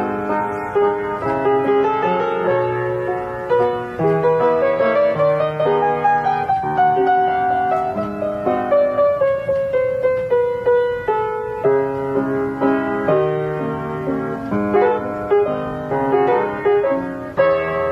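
Piano played four hands, a slow melody over chords with many separate notes, and a held melody line sliding gently down in pitch through the middle.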